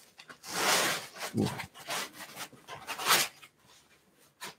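High-density foam packing pieces rubbing and scraping against a box as they are pulled off it, in several short strokes, the longest about a second in.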